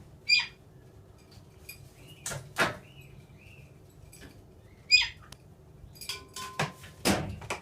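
Pet birds giving short, harsh calls, one just after the start and another about five seconds in, with a few soft chirps between. Several sharp knocks and taps are mixed in, two close together near the middle and two near the end.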